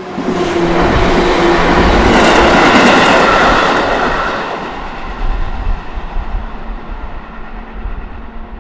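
A JR train passing over a level crossing: it comes up loud at once, sweeps past at its loudest for a few seconds, then fades away with wheels clacking over the rail joints.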